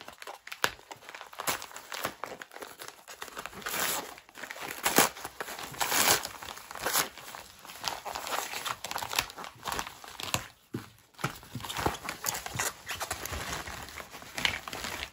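Packaging around coins being handled and unwrapped by hand: irregular crinkling and rustling with short crackles throughout.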